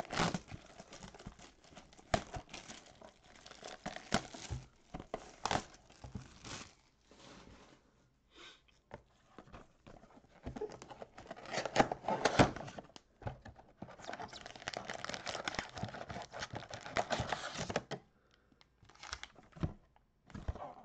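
Plastic shrink-wrap being torn and crinkled off a cardboard trading-card box, in irregular rustling spells with small clicks, the longest spell of crinkling coming late.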